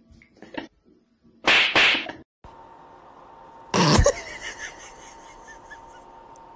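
Domestic cats hissing: two sharp hisses in quick succession, then a few seconds later another sudden hiss that trails off into a faint wavering cry.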